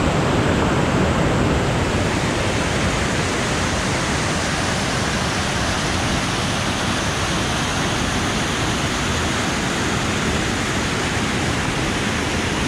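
Mäntyukoski waterfall: a steady, loud rush of falling water.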